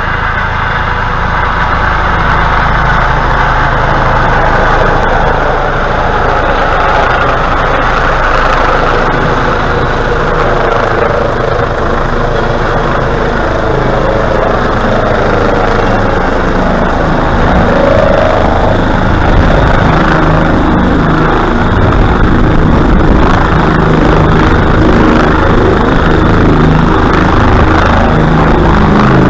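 Air ambulance helicopter, a Eurocopter EC135, running loud and steady as it comes in, hovers and sets down on its landing pad: a continuous rotor and turbine din, a little louder in the second half as it nears and touches down.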